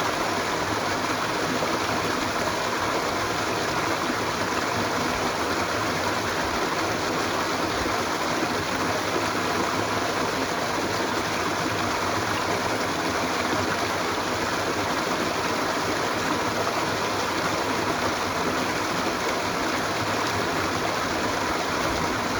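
Running water of a stream, a steady rushing with no breaks.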